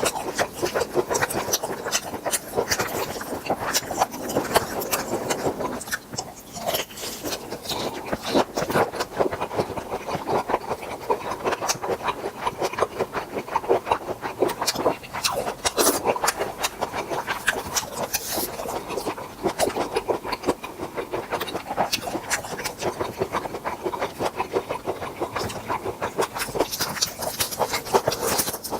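Close-miked eating of grilled tiger prawns: steady wet chewing with dense, irregular crunching and crackling of the shells.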